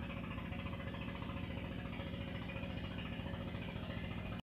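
A small engine idling steadily, a low hum with a fast even pulse.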